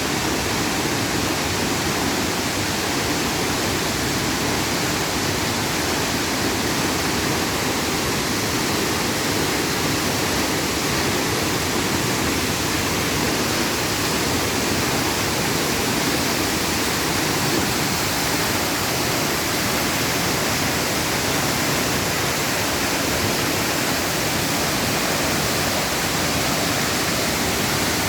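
Waterfall pouring without letup: an even, unchanging rush of falling water.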